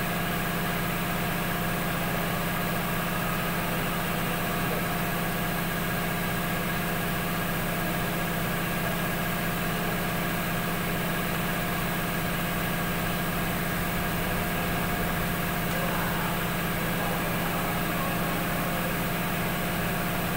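GMC pickup truck's engine idling steadily under the open hood, an even, unchanging hum.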